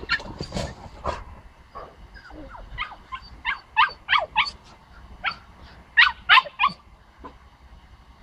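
Dog barking in short, high-pitched yips: a quick run of about six a few seconds in, then a burst of three near the end.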